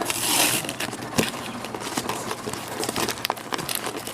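A parcel's packaging being torn and crinkled open by hand. A brief noisy rip comes at the start, followed by scattered crinkles and clicks.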